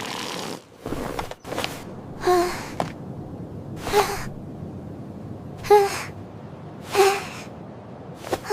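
A cartoon character's voice gasping, five short breathy gasps about one and a half seconds apart.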